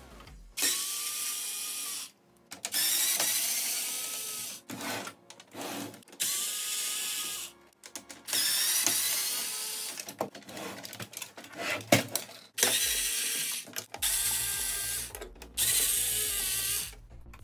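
Small cordless electric screwdriver whirring in repeated short bursts of a second or two, about eight times, as it backs out the screws of a Sony mini hi-fi's casing. A sharp click comes about twelve seconds in.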